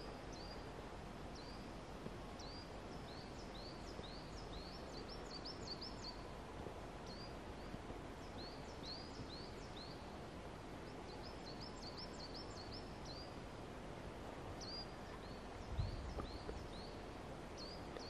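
Small birds calling in the woods: short high chirps repeated in quick runs, over a steady background hiss. A brief low rumble comes near the end.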